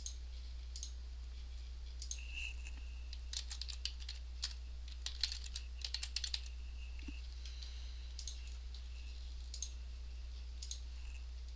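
Typing on a computer keyboard: a quick run of keystrokes in the middle, with single clicks scattered before and after, over a steady low hum.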